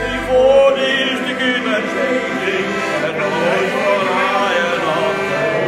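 Piano accordion playing a tune while voices sing along.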